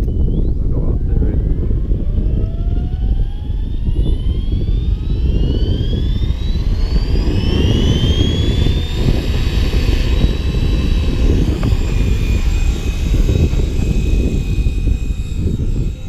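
Align T-Rex 550E electric RC helicopter spooling up on the ground: its motor and rotor whine rises steadily in pitch for about the first nine seconds, then holds steady at flight head speed. Heavy wind rumble on the microphone sits underneath.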